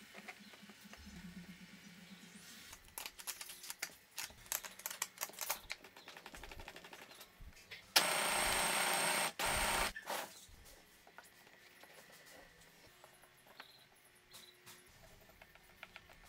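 A homemade belt sander driven by a cordless drill runs in one loud, steady burst of about two seconds, with a short break in the middle. Before it come scattered knocks and clatter of wooden parts being handled, and after it quieter handling sounds.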